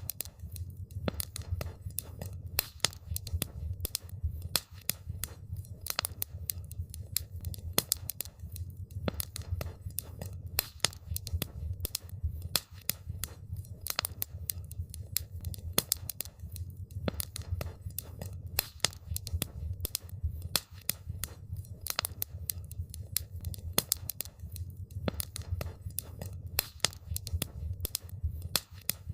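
Wood campfire crackling: a dense, irregular stream of sharp pops and snaps from the burning wood over a steady low rumble.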